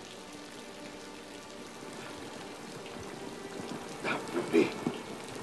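Rain falling steadily. About four seconds in, a man gasps and grunts several times in hard, ragged breaths, the loudest near the end.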